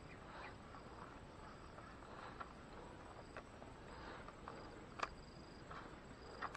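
Faint outdoor ambience with insects, broken by a few sharp clicks from a spinning rod and reel being handled during a cast and retrieve, the loudest about five seconds in.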